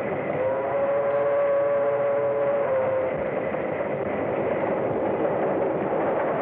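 Steam locomotive whistle blowing one long chord for about two and a half seconds over the steady noise of a train running at speed.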